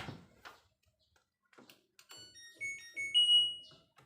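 LG front-loading washing machine's control-panel buzzer playing its electronic power-on melody: a quick run of short stepped beeps, then one longer held tone, after a few faint clicks. The control board is responding again after the start-button repair.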